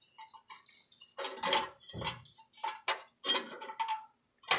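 Irregular metallic clinks and scrapes of a bolt and hand tools being worked at an exhaust tailpipe-to-muffler joint, several strokes with a brief metallic ring.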